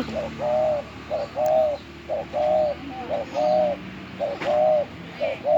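A dove cooing: about five two-part coos, each a short note followed by a longer one, repeating about once a second.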